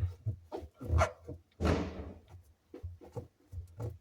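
Handling noise: a string of soft, irregular knocks and clicks with a brief rubbing sound about one and a half seconds in, as the rubber door seal is handled close to the microphone.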